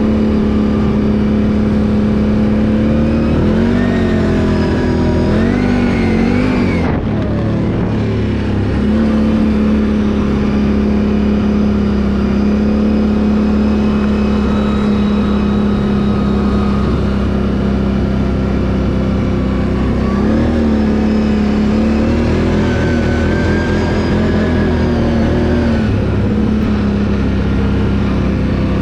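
Can-Am ATV engine running at a steady pitch while riding, its note rising and falling a few times as the throttle changes, with the steady tone between.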